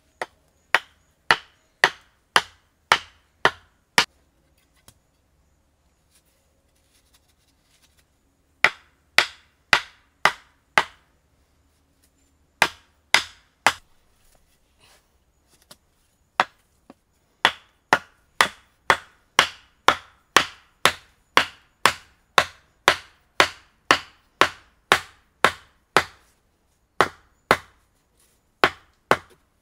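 Wooden stakes being pounded into the ground with a wooden pole: sharp wooden knocks in runs of several strikes, about two a second, with the longest unbroken run in the second half.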